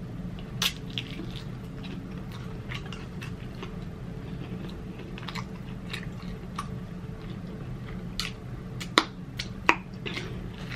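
Close-miked chewing of a sauced chicken wing: irregular wet clicks and smacks of the mouth, with a few sharper clicks near the end, over a low steady hum.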